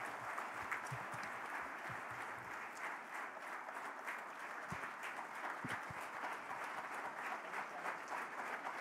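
Large audience applauding, a steady dense clapping without a break.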